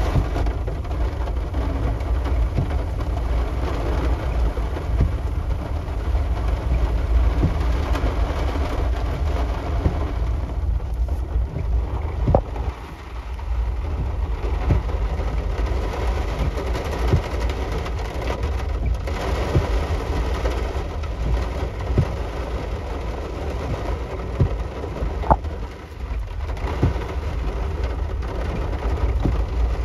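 Thunderstorm rain and wind: a steady, heavy wash of rain over a strong low rumble, with scattered sharp taps.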